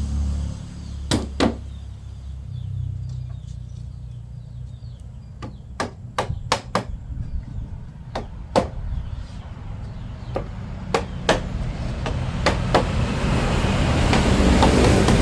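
Sharp knocks of a hammer striking wood, mostly in pairs and a quick cluster, as the pieces of a wooden door panel are tapped into place. A low steady rumble runs underneath and grows louder near the end.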